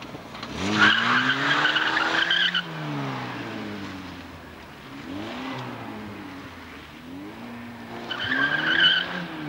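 Car engine revving up and down as the sedan is thrown through tight turns around cones, with the tyres squealing: once for nearly two seconds starting about a second in, and again briefly near the end.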